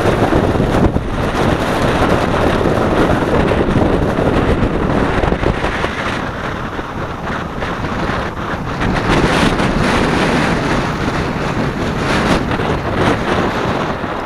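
Strong hurricane wind buffeting the microphone over the wash of surf running up the beach: a loud, steady roar of noise that eases slightly midway and then builds again.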